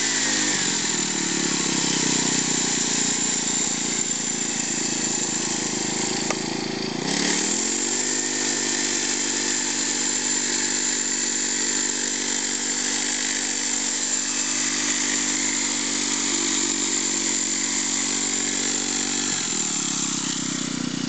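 Honda GX31 single-cylinder four-stroke petrol engine of a 1/6 scale radio-controlled tank running. Its revs drop right at the start, dip and pick up again about seven seconds in, and fall back near the end.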